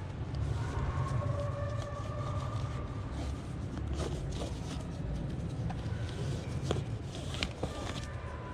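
Light clicks, scrapes and rustles of nylon webbing straps and buckles being pulled and handled on a motorcycle tail bag, over a steady low rumble.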